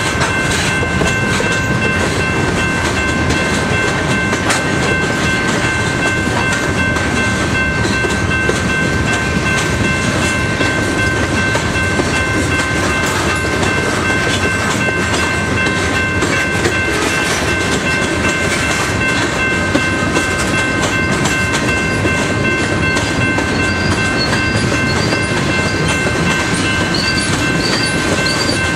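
Freight train's covered hoppers and tank cars rolling past at close range: a loud, steady rumble and clatter of steel wheels on the rails, with a few steady high-pitched tones ringing over it.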